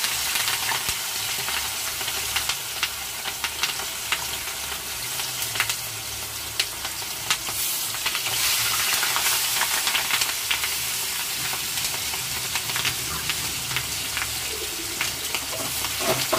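Turmeric-and-salt-marinated bata fish frying in smoking-hot oil in an aluminium kadhai: a steady sizzle with many sharp crackles and pops of spattering oil.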